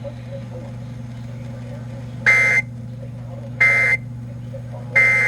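Emergency Alert System end-of-message tones: three short, identical buzzy data bursts about a second and a half apart, marking the end of the warning broadcast. A steady low hum runs underneath.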